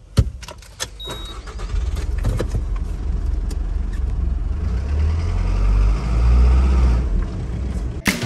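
Delivery truck's engine running from inside the cab as the truck moves off and gathers speed, a low steady rumble that swells twice. A few clicks and a short beep come from the cab controls in the first second or so.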